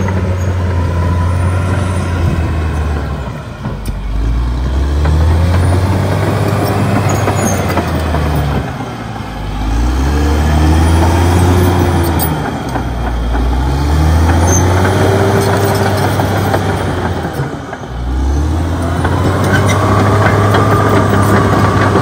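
Caterpillar D6R XL bulldozer's diesel engine working under load as the dozer pushes soil. The engine note sags and climbs back about four times, rising and falling in pitch as it revs up and drops back.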